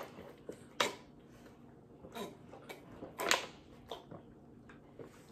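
Scattered light clicks and plastic crinkles from plastic water bottles and snack packaging being handled, with a louder crackle about three seconds in.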